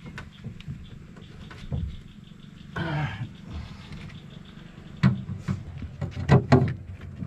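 Scattered clicks and knocks of a screwdriver and a metal battery shunt being handled and set in place in a battery compartment, with a short scuffing noise about three seconds in and a louder run of sharp knocks in the second half.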